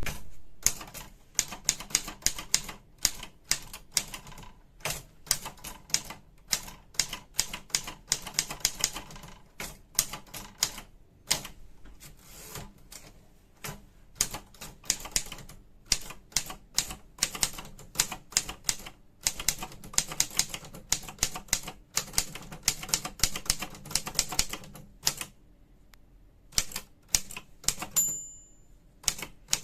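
Smith-Corona Corrector 12 electric typewriter being typed on: fast, uneven keystrokes over the steady hum of its motor, with short pauses. The end-of-line bell rings once near the end, and typing resumes.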